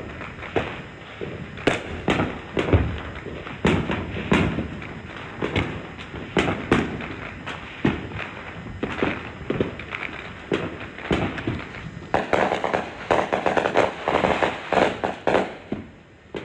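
Many fireworks going off at once: irregular sharp bangs and booms, several a second, thickening into dense crackling from about twelve seconds in.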